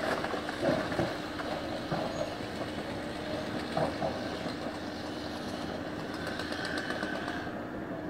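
Bulldozer's diesel engine running steadily, with a few knocks and rattles as it works against a felled tree trunk. A higher hiss fades out near the end.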